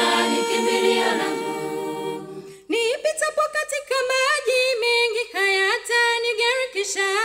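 Swahili gospel song sung a cappella. A choir holds the end of a line and fades out about two and a half seconds in, then a single high voice sings the next line alone.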